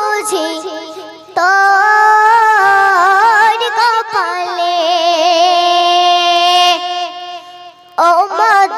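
A boy singing a Bengali Islamic gojol solo into a microphone, in slow, ornamented phrases. He holds one long note in the middle.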